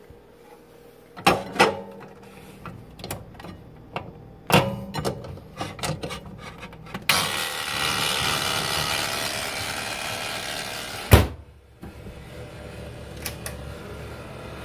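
Clatter and clicks of a ceramic plate being handled and set into a vintage countertop microwave oven, then a few seconds of steady rushing noise, and the oven door shut with one loud knock about eleven seconds in, followed by a low steady hum.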